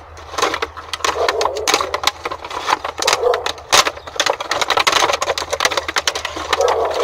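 Packaging being torn open by hand: irregular ripping, crinkling and crackling with handling knocks.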